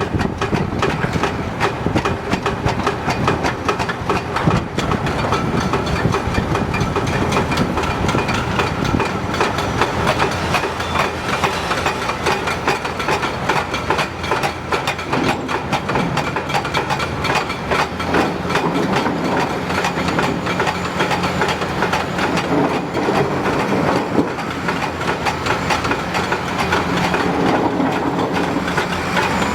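Hitachi 330 excavator at work: its diesel engine running steadily under a dense, continuous rattling and clanking of rock and steel.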